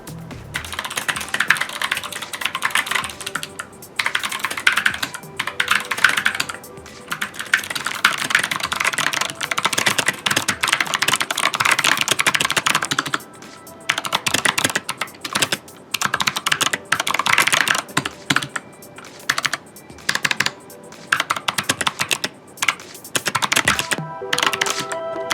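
Fast typing on a tenkeyless mechanical keyboard with Novelkeys x Kailh Thick Click navy clicky switches and doubleshot keycaps: dense runs of sharp key clicks, broken by brief pauses in the second half.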